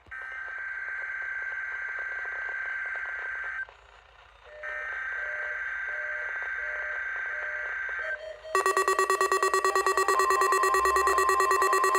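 Emergency alert broadcast test tones. There are two long bursts of buzzing data tone, each about three and a half seconds, with a short gap between them and a pulsing low beep under the second. About eight and a half seconds in, a louder alert tone with several pitches starts and pulses rapidly.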